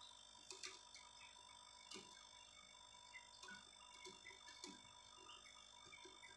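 Near silence: a faint steady hum with scattered light ticks.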